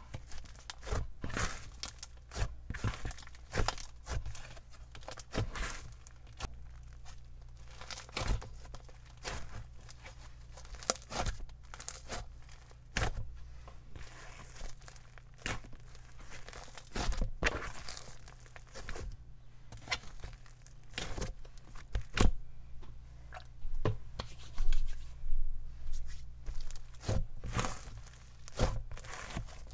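Hands squishing and pressing an icy slime mixed with clear slime, making irregular sticky crackles and snaps, some louder than others.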